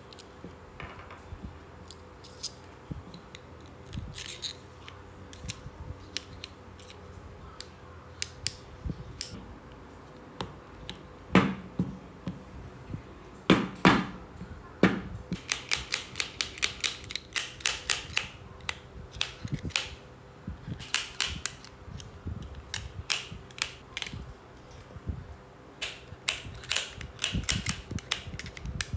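Irregular small mechanical clicks and ticks, sparse at first and coming in quick clusters from about fifteen seconds in, with two louder knocks about eleven and fourteen seconds in.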